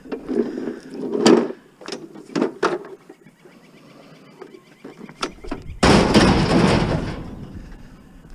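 Scrap metal and junk being handled and loaded onto a truck: a run of knocks and clatters, then a loud crash with rattling about six seconds in that fades over a second.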